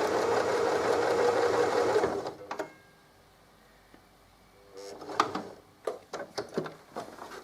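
Electric sewing machine running a zigzag stitch for about two seconds, then stopping. After a short pause come a few light clicks and knocks.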